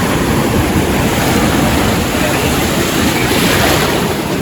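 Storm-driven surf breaking and washing over the rocks, a steady rush of water noise with wind on the microphone. A wave surges up louder a little past three seconds in.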